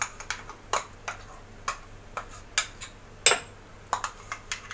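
Metal spoon clinking and scraping against a stainless-steel mixer-grinder jar while scooping out thick ground chutney: a string of short, sharp, uneven clicks, about two a second, with one louder knock about three seconds in.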